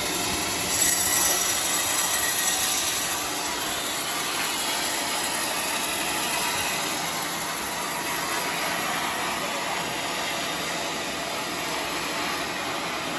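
Homemade band sawmill running steadily with a continuous mechanical rush. About a second in it grows louder and hissier for a couple of seconds.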